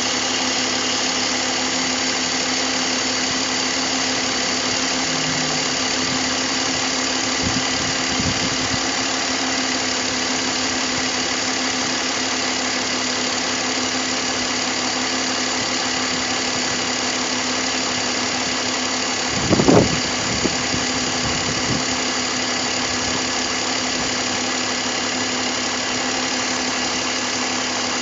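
BMW M54 straight-six engine idling steadily. About two-thirds of the way through there is one short, louder knock, with a few fainter ones earlier.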